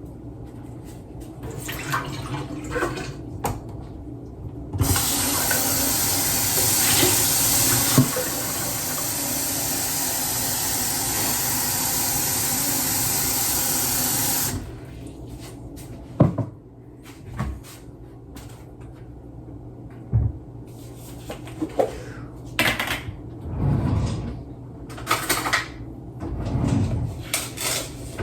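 A tap running into a sink for about ten seconds, starting and stopping abruptly, with scattered knocks and clatters of things being handled before and after.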